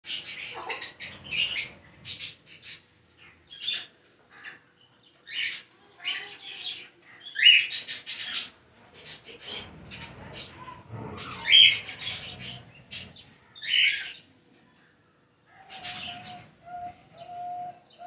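A flock of lovebirds chirping in sharp, high-pitched calls that come in clusters with short pauses between them. Near the end a lower, steadier note joins in.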